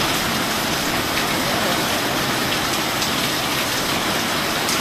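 Torrential rain falling steadily on a sheet roof and leafy shrubbery: a dense, even hiss with a few louder individual drips.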